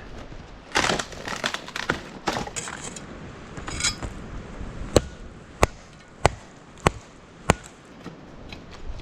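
Crunching and rustling handling noises, then five sharp chopping strokes on wood, evenly spaced about two-thirds of a second apart.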